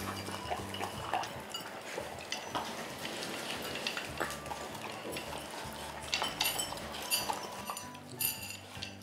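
Three dogs eating from their bowls: repeated clinks and clicks of food and teeth against the bowls, busiest about two thirds of the way in, over soft background music.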